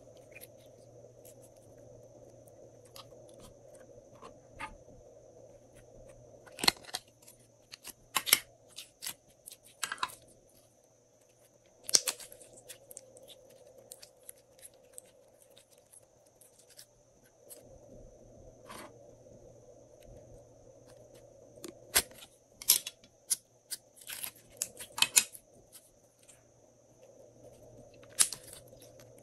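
Glossy slime squeezed, kneaded and stretched by hand, giving sharp sticky clicks and pops that come in clusters, over a faint steady background hum.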